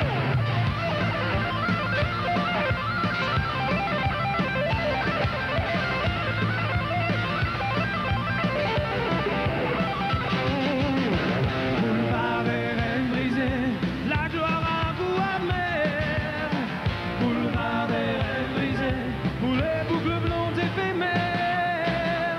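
Rock band playing live: electric guitar over bass and drums, with a wavering lead melody line on top.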